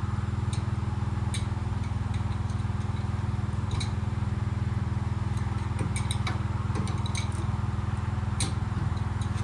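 An engine idling steadily with an even, fast firing pulse, with a few light metallic clicks over it.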